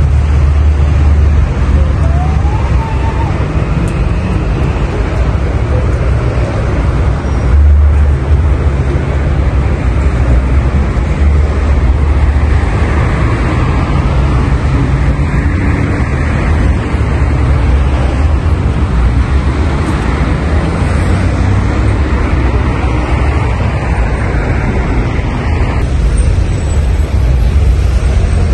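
Steady road-traffic noise from cars moving slowly along a busy city street, with a heavy low rumble.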